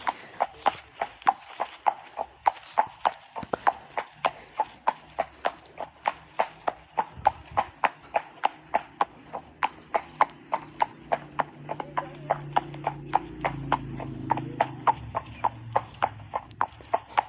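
Horse hooves clip-clopping on a hard surface in a steady, even rhythm of about four strikes a second. A faint low hum swells under the hoofbeats in the middle and fades.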